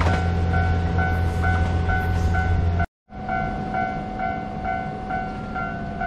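Japanese railway level-crossing warning bell ringing in a steady two-tone ding about twice a second. For the first three seconds a steady low rumble runs under it. About three seconds in, the sound cuts out briefly, then the bell resumes without the rumble.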